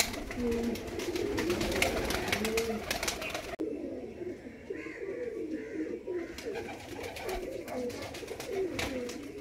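Domestic pigeons cooing, several overlapping low, wavering coos, with a scatter of clicks over the first three and a half seconds.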